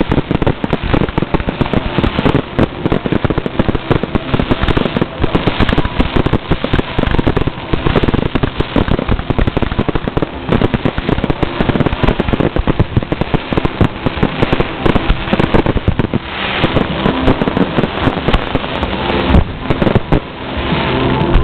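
Fireworks finale barrage: aerial shells launching from ground mortars and bursting in rapid succession, several bangs a second, with crackle. From about sixteen seconds in, the separate bangs give way to a steadier, denser crackling.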